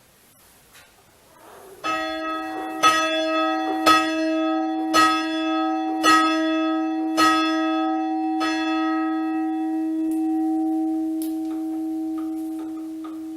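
A church bell being chimed in the down position: it is swung just enough for the clapper to strike its side. It starts about two seconds in with seven strikes about a second apart, then the bell's hum dies away slowly. It is the plain chiming a bell gives before it is rung up.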